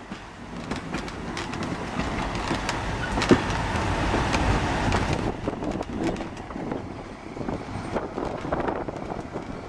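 Railway brake van rolling slowly over jointed track, with a steady rumble and many wheel clicks over rail joints and points. It grows louder in the middle, with one sharp clank about a third of the way in.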